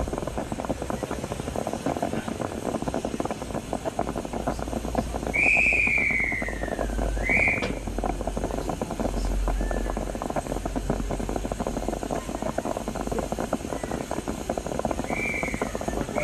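Narrow-gauge steam train running, a steady low rumble with dense rattling from the train. About five seconds in, a high whistling tone sags in pitch for a couple of seconds and jumps back up, and shorter high tones come near the end.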